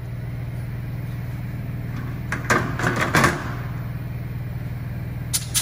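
Compressed-air motor of a brush-cleaning machine running steadily with a low hum as it spins the brush shaft. About two seconds in, a short burst of clattering knocks, then two sharp clicks near the end.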